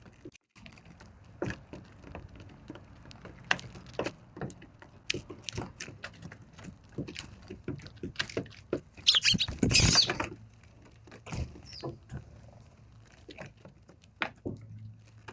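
Eurasian tree sparrows pecking at castella sponge cake, a scatter of small irregular taps and patters. A louder flurry about nine seconds in carries a few high chirps.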